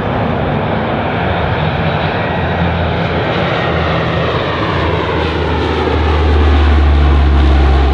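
Lockheed C-130E Hercules' four Allison T56 turboprop engines and propellers as it flies low past, a steady drone that grows louder about six seconds in as it comes closest. Its pitch falls as it goes by.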